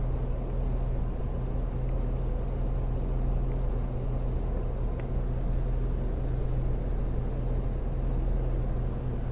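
Steady low drone of a running engine in the background, with one faint sharp click about five seconds in.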